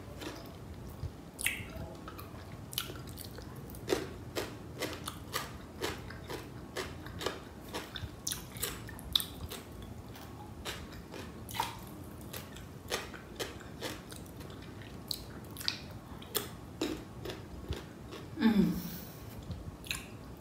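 Close-miked mukbang eating: chewing and biting through mouthfuls of biryani rice and pickled small cucumbers, with frequent sharp mouth clicks and smacks. Near the end there is a short, louder vocal "mm".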